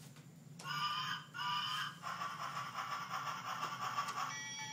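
Tinny electronic train sound effect from a battery-powered Mexican Train dominoes hub: two short whistle blasts, then a longer one, changing to a thinner steady tone near the end.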